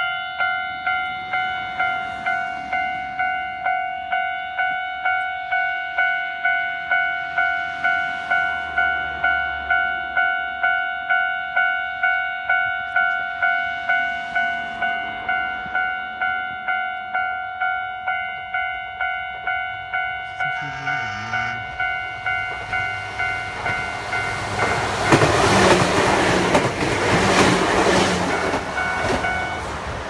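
Japanese level-crossing warning bell ringing steadily, about two strokes a second, while the barriers are down for an approaching train. Near the end a loud rushing noise swells over the bell and then eases.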